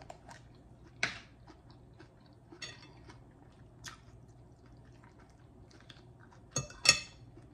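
Jar of Duke's mayonnaise being handled and mayonnaise scooped out with a utensil: a few scattered soft clicks and taps, then a louder, sharper clatter of clinks and scrapes near the end.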